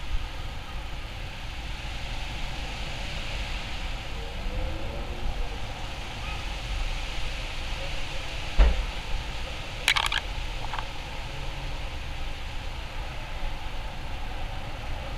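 Steady outdoor background noise with a low rumble, like distant traffic. A single thump comes about two-thirds of the way in, followed a second later by a short cluster of sharp clicks.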